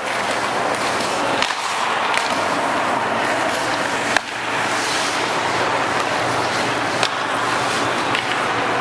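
Ice hockey skates carving and scraping across rink ice during a passing drill, with a sharp puck clack about four seconds in and a softer one near seven seconds.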